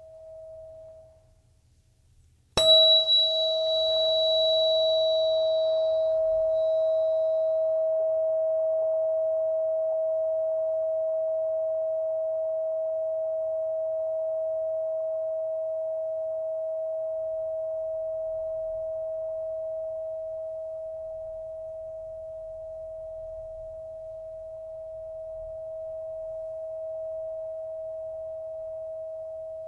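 A Solfeggio-set tuning fork struck once, about two and a half seconds in: a sharp strike click and a brief high overtone, then one steady pure tone that rings on and slowly fades. Just before the strike, a tone of the same pitch dies away.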